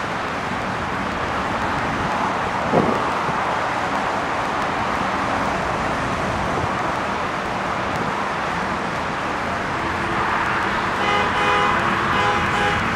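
Steady street traffic noise, with a brief falling squeak about three seconds in. Near the end a vehicle horn sounds for about two seconds, a steady tone on several pitches at once.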